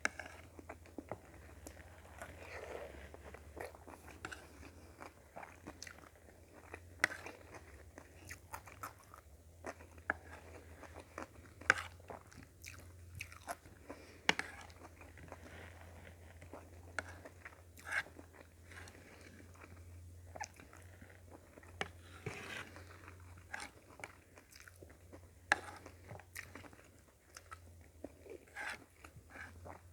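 A person chewing and biting food close to the microphone: irregular wet crunches and sharp mouth clicks, over a steady low hum.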